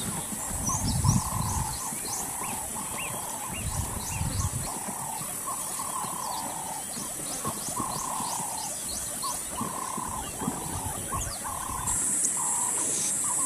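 A run of short, repeated animal calls, roughly one to two a second, over a steady high-pitched buzz and faint high chirps. Wind rumbles on the microphone in the first seconds.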